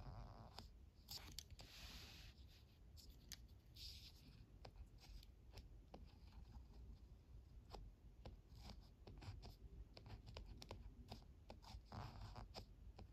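Faint scratching of a ballpoint pen tip drawn across paper in short strokes, with small ticks as the tip touches down and lifts off between strokes.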